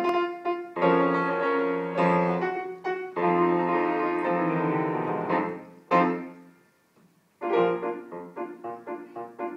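Piano playing the introduction to a xylophone piece: held chords, a strong struck chord about six seconds in that rings away into a brief pause, then quicker detached notes.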